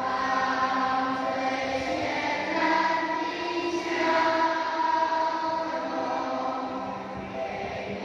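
A large group of primary-school children singing a Mandarin song together in unison.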